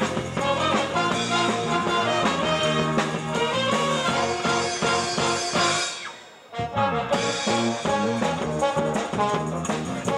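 Military big band of saxophones, trumpets and trombones playing. About six seconds in the music briefly stops, then the full band comes back in.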